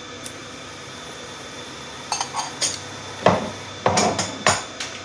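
Kitchenware being handled: a run of light clinks and heavier knocks, about eight in three seconds, starting about two seconds in, over a faint steady hum.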